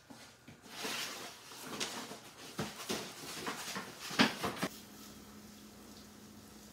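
Loose chainsaw chain clinking and clattering on a wooden workbench as it is pulled out and laid down, in a handful of sharp metallic rattles, the loudest about four seconds in. After about four and a half seconds the rattling stops and only a faint steady hum remains.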